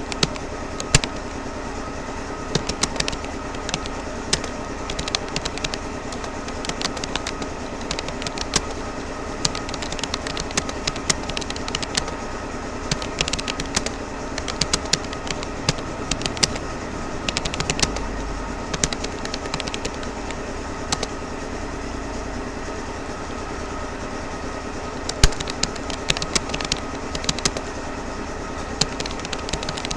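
Keystrokes on a Rapoo computer keyboard during touch typing: irregular quick clicks, a few a second, some bunched together, over a steady background hum.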